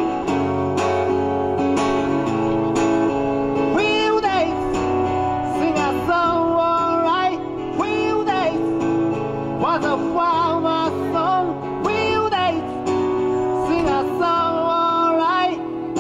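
Background song: singing over guitar accompaniment.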